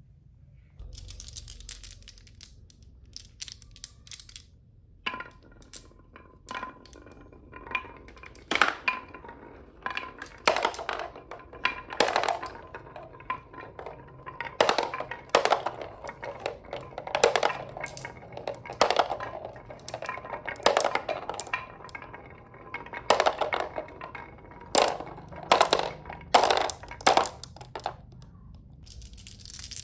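Marbles rolling down a wooden HABA marble run, with a steady rolling rumble and many sharp clacks as they hit the track and drop between runs. A soft hiss comes first, and the rolling and clacking start about five seconds in and stop a couple of seconds before the end.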